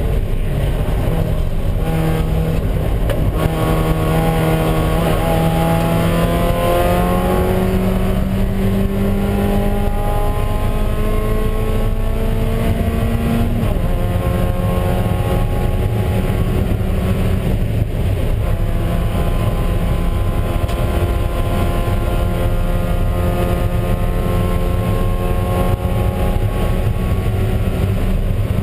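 Spec Miata race car's four-cylinder engine heard from inside the cockpit, accelerating hard down a straight. Its pitch climbs for about 13 seconds, drops abruptly with an upshift, then climbs slowly again in the next gear, over steady wind and road noise.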